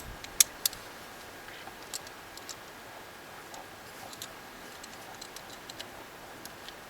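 A hose clip on a generator's fuel hose being tightened: scattered light metallic clicks and ticks, the sharpest few in the first second.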